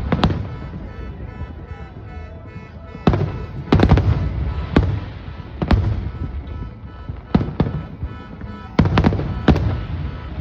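Aerial fireworks shells bursting in a series of booms, some singly and some in quick clusters of two or three. Music plays steadily underneath.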